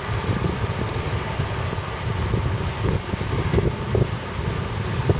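Wind buffeting the microphone of a camera carried on a moving road bicycle: a loud, irregular low rumble with gusty flutter. It cuts off suddenly at the end.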